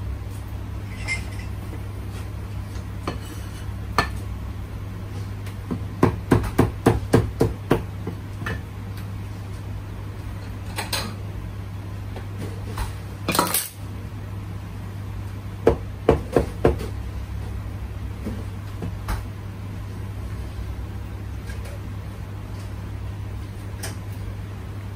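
Cleaver chopping on a board: a quick run of about eight strikes, a pause, then four more, with a few single knocks between.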